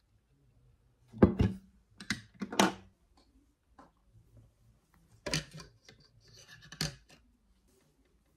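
A handful of short scratchy rubbing and knocking sounds with quiet between them: long hair being gathered, twisted and handled with a hair claw clip.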